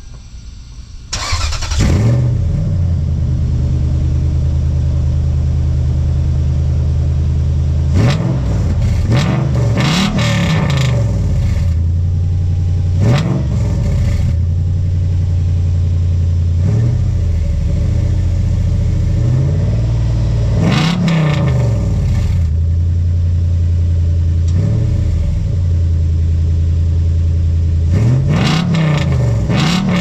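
Fourth-gen 4Runner's Toyota 2UZ-FE 4.7-litre V8, with Doug Thorley long-tube headers and an exhaust dumping ahead of the rear axle, heard from under the truck: it starts about a second in and settles into a steady idle. It is blipped with a series of short revs that rise and fall back to idle, two close together near the end.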